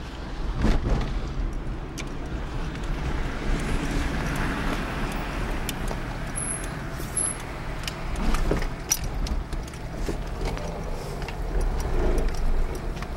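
Fiat Panda's engine running with road noise, heard from inside the cabin as the car drives slowly, with a steady low rumble and scattered clicks.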